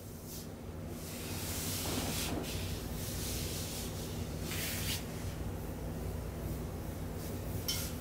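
Hands rubbing and pressing over a person's back and clothing during a massage: soft brushing swishes now and then over a low steady hum.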